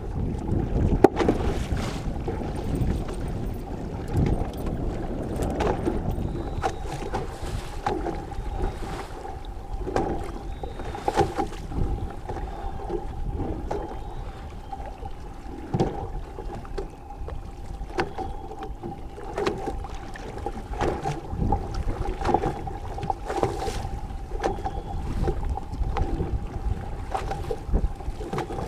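Fishing boat underway: a steady motor hum over a low rumble, with irregular gusts of wind buffeting the microphone.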